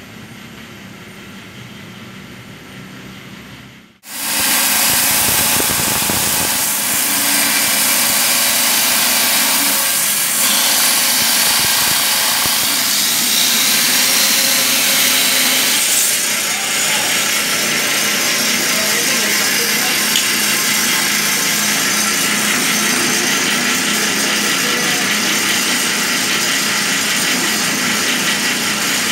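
Wet stone-cutting saw cutting black bacan gemstone rough into small squares: a loud, steady grinding hiss that starts suddenly about four seconds in.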